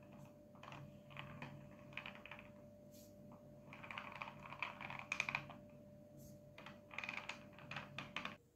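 Crisp crackling and scraping from the finished burgers and fried potato wedges being handled on a wooden board, in three bursts, over a faint steady hum.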